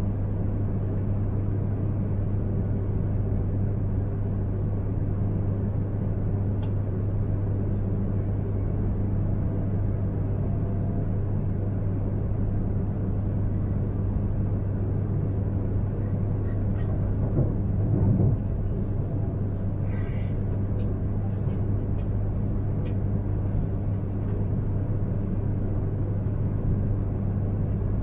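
Steady low hum inside the passenger cabin of an E3-series Shinkansen train, with a few faint clicks and a brief louder swell about two-thirds of the way through.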